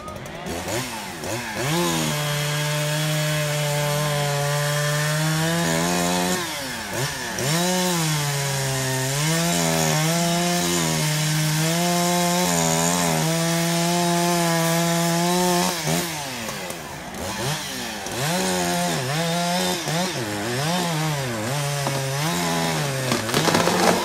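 Chainsaw cutting through a thick tree limb: the engine held near full throttle, its pitch sagging as the chain bites into the wood and climbing back again. In the second half it revs up and down more often.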